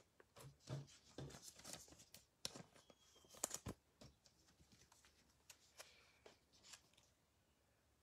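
Faint rustling, light taps and clicks of trading cards being handled and sorted on a table. The sounds come in quick short bursts for about four seconds, the loudest a little past three seconds in, then die down to near quiet.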